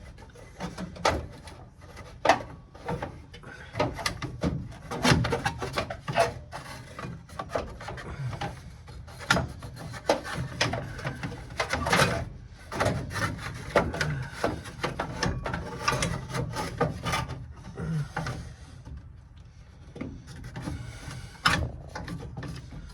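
A car radiator fan shroud being worked into a tight engine bay: irregular scraping and rubbing with knocks as it is turned and pushed against its mounting brackets and the parts around it. The knocking eases off for a couple of seconds a little before the end.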